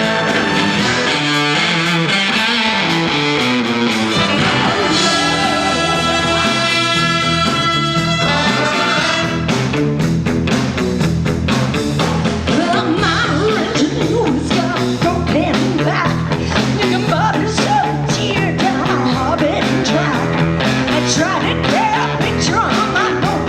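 A live rock band playing an instrumental break: electric guitar over bass and drums. A chord is held for the first several seconds, then the drums come in busier about nine seconds in under a wavering lead line.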